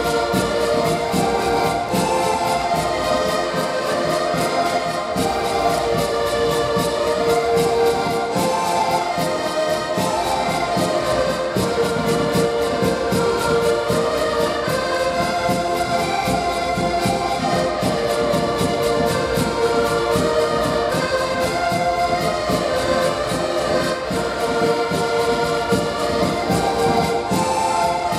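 An ensemble of button accordions playing a lively folk tune together, with a bass drum keeping a steady beat.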